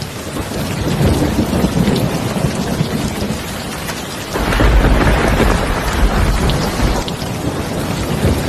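Heavy rain falling steadily, with a deep rumble of thunder that swells about halfway through and eases off near the end.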